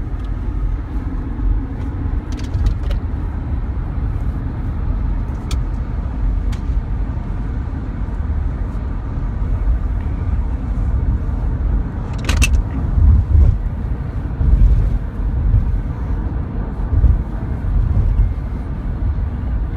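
Steady low rumble with a few sharp clicks, and a short hissing burst about twelve seconds in.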